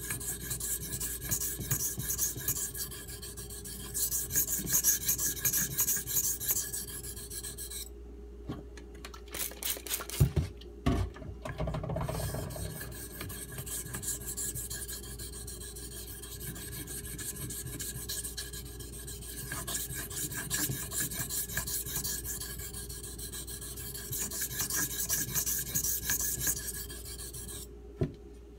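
CPM 3V steel knife blade stroked back and forth on a Shapton Pro whetstone, a steady gritty scraping as the convex bevel of this very wear-resistant steel is worked. The strokes stop about eight seconds in, with a few knocks as the knife is handled, and start again about four seconds later until a click near the end.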